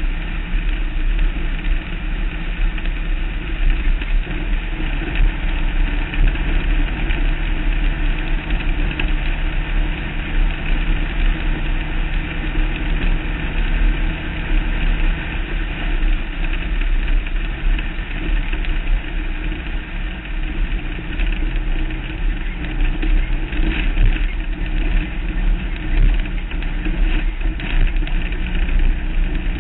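Off-road race vehicle's engine running continuously as it drives over a rough dirt track, heard from an onboard mount along with a steady low rumble of tyre and chassis noise. A few sharper knocks come from bumps a few seconds before the end.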